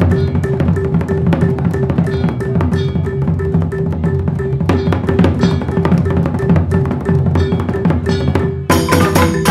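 Balinese joged bungbung gamelan playing: struck bamboo instruments and drums in a dense, fast texture over a steadily repeated mid-pitched note. Just under a second before the end the music suddenly turns fuller and brighter.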